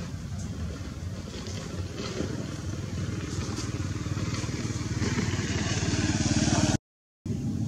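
A motor vehicle engine running steadily and growing louder, with a rising hiss. All sound drops out for a moment near the end.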